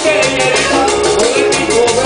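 Live vallenato music: a button accordion playing a melody over shaken and scraped percussion, with a man singing.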